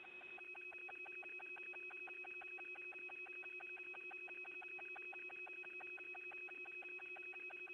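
Electronic tones on an open radio communications loop: a low steady tone and a high steady tone, with a rapid, even ticking about eight times a second.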